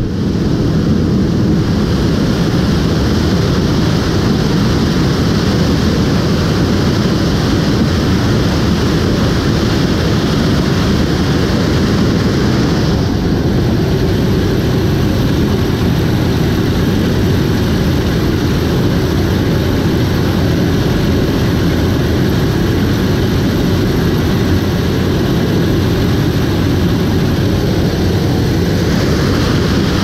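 John Deere S790 combine harvesting corn, heard close to its 12-row 712C corn head: a steady, loud mechanical noise of the running machine and its corn head taking in stalks. The higher part of the sound shifts a little about a third of the way in and again near the end.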